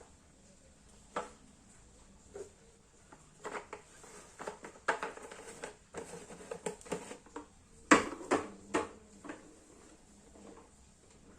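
Marbles rolling and clacking through a wooden marble run. A couple of single knocks come first, then a busy stretch of clicks and rattles, loudest about eight seconds in, thinning out near the end.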